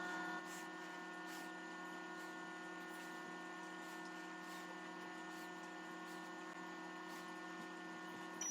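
Microwave oven running: a faint, steady hum with several fixed tones.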